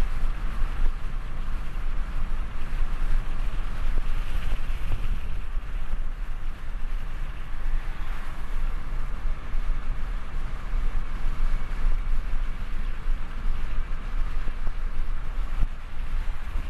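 Steady road noise inside a car cabin at cruising speed: tyre roar on the asphalt over a deep engine and road rumble, picked up by binaural in-ear microphones.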